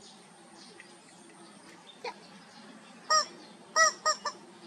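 Yellow rubber chicken squeeze toy squawking four times about three seconds in: one longer honk, then three short ones in quick succession.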